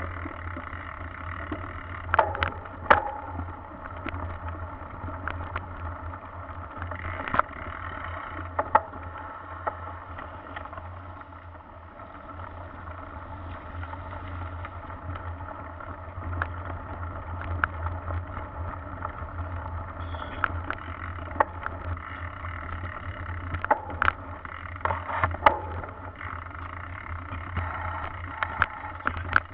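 Mountain bike riding over a rough dirt and mud trail, heard through a bike-mounted camera: a steady low drone of rolling and riding noise with scattered sharp knocks and rattles as the bike goes over bumps.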